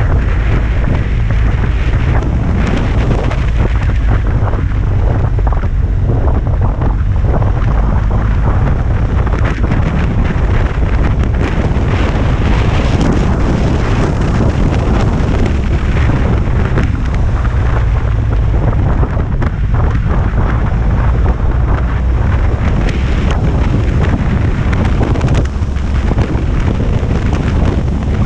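Heavy, steady wind rush on the microphone of a camera mounted on a moving motorcycle, with the bike's engine and road rumble underneath.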